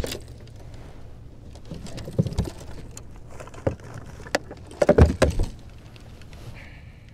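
Handling noise on a fishing boat's deck as a bass and a lip-grip fish scale are handled: scattered knocks and clatter, with a cluster of louder thumps about five seconds in and a brief faint tone near the end.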